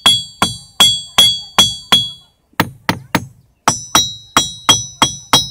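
Ringing rock, a naturally resonant boulder, struck over and over with a hand-held stone, about three strikes a second, each one giving a clear ringing tone. After a short pause about two seconds in, the strikes land on another spot and the ring is higher in pitch.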